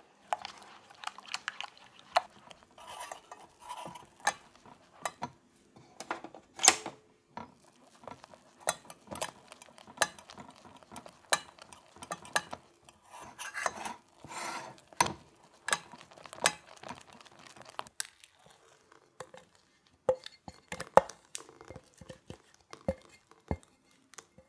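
Silicone spatula stirring and scraping egg-yolk custard in a small stainless steel saucepan, with frequent knocks and clinks against the pan. After about eighteen seconds the scraping stops, leaving a few scattered sharp clinks.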